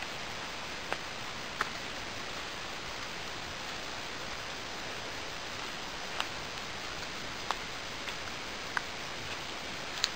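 A steady hiss with about six short, sharp ticks scattered through it at irregular intervals; the loudest tick comes near the end.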